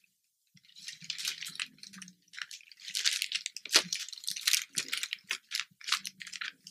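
Thin plastic shopping bag crinkling and rustling as hands rummage inside it, in irregular crackles starting about half a second in.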